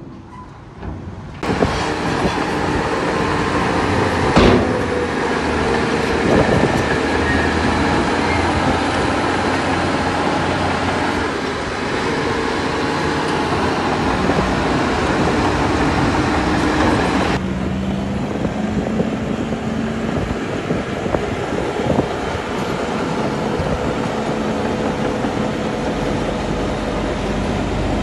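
Heavy diesel earthmoving machinery running steadily. It starts abruptly about a second in, with a single knock a few seconds later. About two-thirds of the way through the hiss drops away abruptly, leaving a steadier engine hum.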